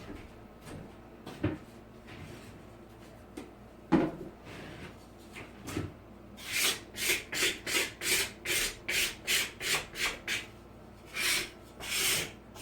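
A few light knocks, then a wooden stir stick scraping over dried wall texture in quick repeated strokes, about three a second, ending with two longer strokes. The stick is knocking down the sharp edges and bumps of the texture.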